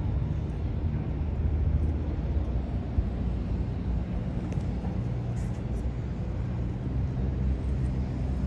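Low, steady rumble of harbour boat engines, the tug and a small workboat running across the water.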